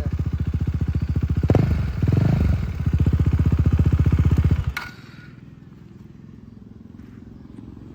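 KTM Duke 390's single-cylinder engine running with an even beat, blipped briefly about two seconds in, then cutting off suddenly about four and a half seconds in. It runs with no ticking: the tick came from a failed cam chain tensioner, now replaced.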